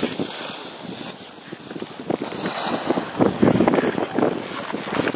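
Slalom skis scraping and carving on hard-packed snow through the turns, a rough hiss that grows louder about three seconds in, with wind buffeting the microphone.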